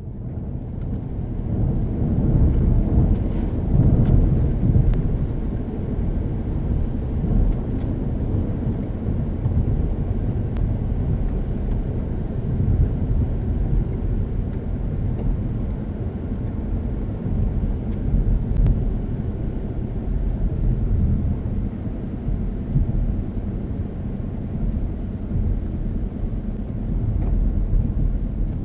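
A 2012 Chevrolet Cruze with the 1.4-litre turbocharged Ecotec engine heard from inside the cabin while driving: a steady, deep rumble of engine and road noise. It builds over the first two seconds, then holds at an even level.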